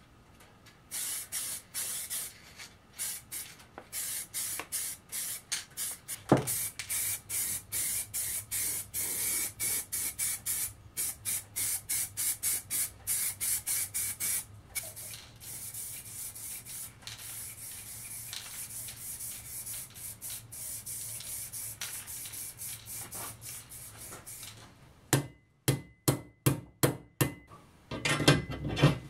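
Aerosol spray-paint can hissing in many short bursts, a couple a second, as a steel attachment is painted. Near the end comes a quick run of sharp clicks.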